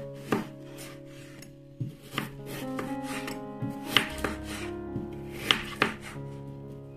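Chef's knife slicing through a peeled chayote onto a plastic cutting board, with a sharp knock at uneven intervals each time the blade meets the board. Background music with held notes plays underneath.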